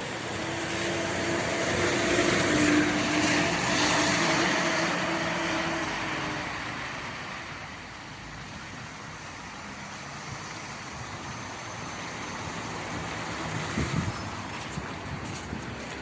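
Road traffic on wet asphalt: cars passing with tyre hiss and engine hum, loudest in the first few seconds, then the quieter approach of a LiAZ-5292.65 city bus pulling in to the stop, with a few short knocks near the end.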